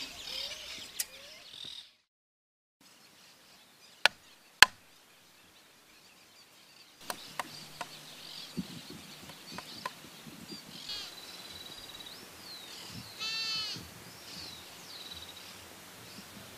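Two sharp knocks, a half second apart, stand out over a quiet outdoor background. Birds chirp and call before and after, with scattered lighter knocks and clicks.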